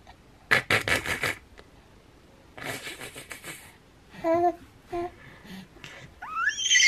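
A young baby laughing in breathy, wheezy bursts, then two short voiced coos, and near the end a loud, high, rising squeal.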